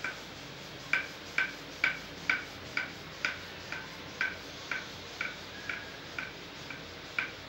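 Wooden rolling pin rolling out dough on a marble board, a short ringing click with each back-and-forth stroke, about two a second, stopping near the end.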